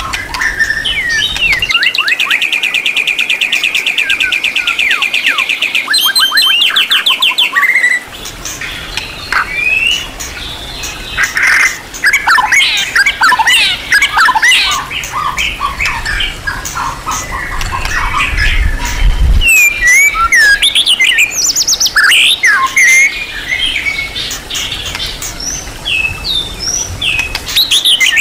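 White-rumped shama (murai batu) singing a long, varied song: a fast trill of rapidly repeated notes a couple of seconds in, then a changing run of whistles, chirps and harsher squawky notes.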